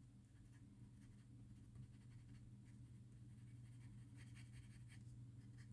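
Near silence: faint, short strokes of a drawing tool scratching on paper, clustered about four to five seconds in, over a low steady hum.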